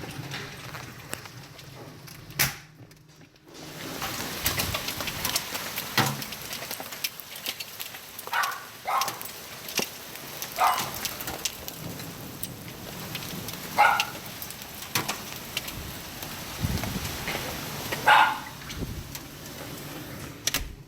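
Rain and hail pellets pattering and ticking on surfaces in a dense, uneven crackle, with a few short high-pitched calls breaking through about a third of the way in and again near the end.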